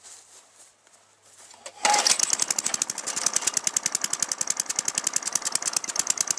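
A Craftsman lawn mower's 3.5 horsepower Tecumseh engine catches about two seconds in and runs. This is the best it will run; the owner puts it down to dirt in the carburetor bowl after the mower sat outside all summer.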